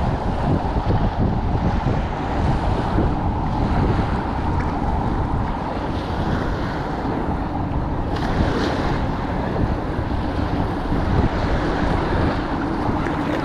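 Wind buffeting the microphone in a steady rumble, over small waves washing on the bay shore.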